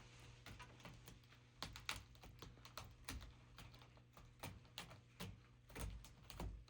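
An irregular run of light, sharp clicks and taps, about two or three a second, over a faint low hum.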